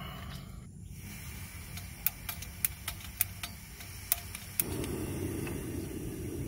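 Piezo igniter of a screw-on butane canister stove clicking repeatedly, about seven sharp clicks over two and a half seconds, then the burner catches about two thirds of the way through and keeps burning with a steady rushing sound of gas and flame.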